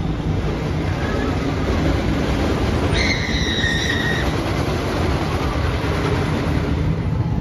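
Steady rumble of an amusement-park train rolling along its track, heard from aboard an open-sided passenger car. About three seconds in, a brief high-pitched squeal lasts a little over a second.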